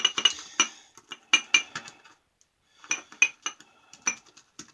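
Shaving brush swirled hard in a soap-filled mug, clinking and tapping against the mug in a rapid, uneven series, with a short pause a little past halfway.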